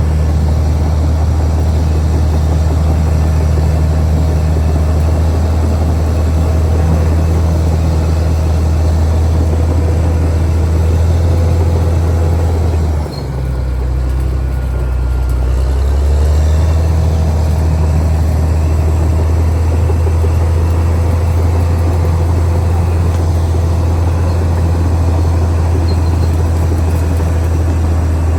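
Caterpillar D6R XL bulldozer's diesel engine running steadily with a deep drone. About halfway through, the sound dips briefly and the engine note shifts for a few seconds before settling back.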